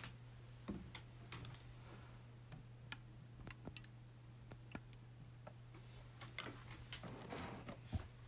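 Quiet room with a steady low hum and scattered faint clicks and taps at irregular intervals, a few bunched together about seven seconds in and the sharpest click just before the end.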